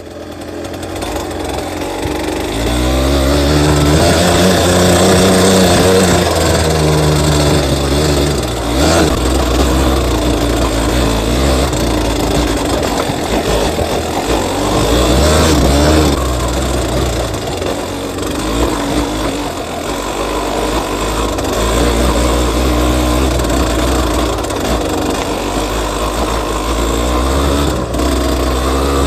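Yamaha DT200WR's single-cylinder two-stroke engine running under way, its pitch rising and falling repeatedly as it revs up and shifts, over a steady hiss.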